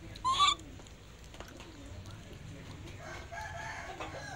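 A short, loud, sharp high call a fraction of a second in, then a rooster crowing about three seconds in.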